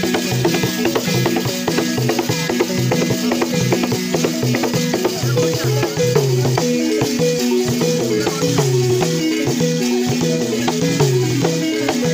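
Balafon ensemble: wooden xylophones play a quick, repeating melody over hand-drum strokes and a rattling shaker sound, continuous throughout.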